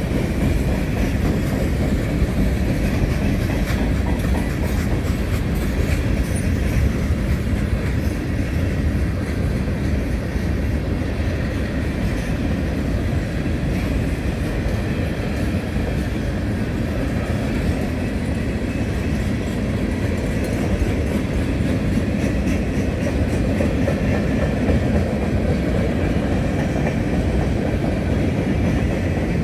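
Freight cars rolling steadily past on steel wheels: a continuous rumble with clickety-clack from the wheels passing over the rail joints.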